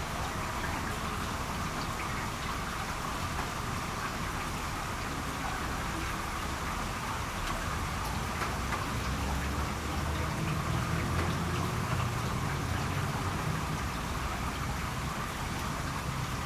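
Steady rainfall: a dense, even hiss of falling drops. A low rumble swells under it about halfway through, then eases.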